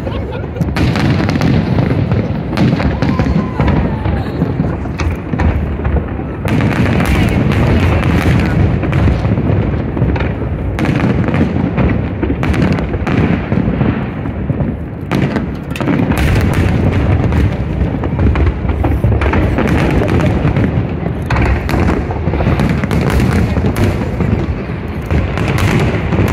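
Aerial fireworks bursting in a dense, continuous barrage of booms and crackles, broken by a few short lulls.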